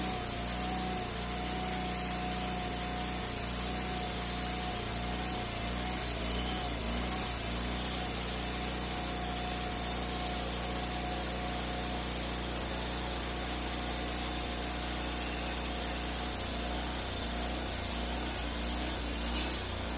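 Portable band sawmill running steadily during cedar log milling: the gasoline engine's drone with a thin, slightly wavering whining tone above it.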